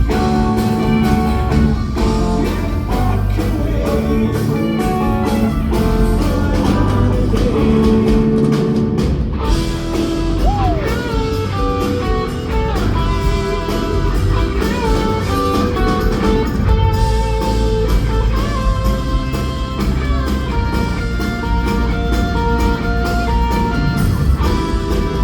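Rock band playing live, with electric guitar lines over bass and drum kit; a few notes slide in pitch about ten seconds in.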